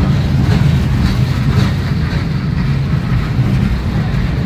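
Canadian Pacific freight boxcars rolling past close by: a loud, steady rumble of wheels on the rails.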